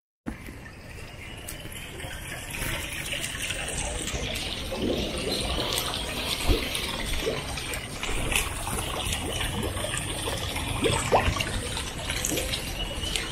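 Water feature splashing steadily into a pond, a continuous hiss, with a low rumble beneath and a few small clicks.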